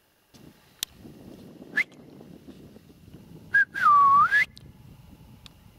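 Whistling: a short rising chirp, then a brief note and a longer note that dips and rises again, the loudest sound. A sharp click near the start and a low rustling run beneath it.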